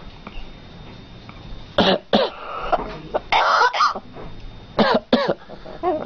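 Parrot giving a run of short, cough-like calls, mostly in quick pairs, with a longer one in the middle.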